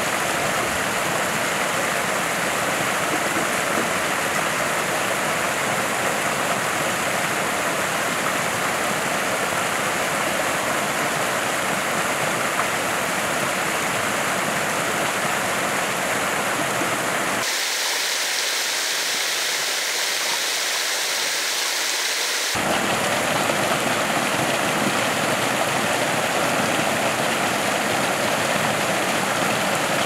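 Steady rush of a stream and small waterfall. About halfway through it turns abruptly thinner and hissier for about five seconds, then returns to the fuller rush.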